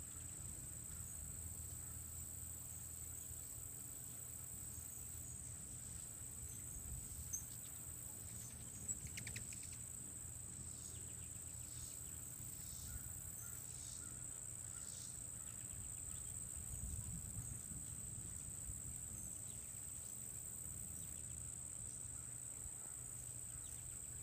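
Insects trilling steadily at a high pitch in garden vegetation, with a few short chirps in the middle and a low steady rumble underneath.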